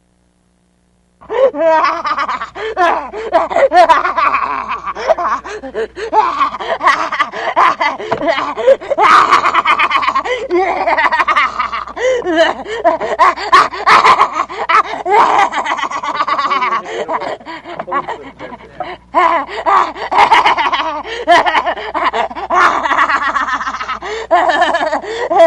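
A woman's maniacal, cackling laugh, kept up without a break, as a possessed character's laugh; it starts about a second in after a moment of silence.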